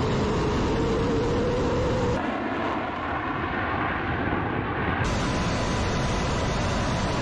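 Fighter jet engines running, a steady rushing noise with a held whine. The sound changes abruptly twice, about two and five seconds in.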